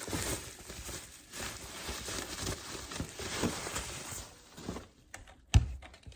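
Rustling and tearing of packaging as a product box is opened, followed by a few clicks and one sharp knock about five and a half seconds in.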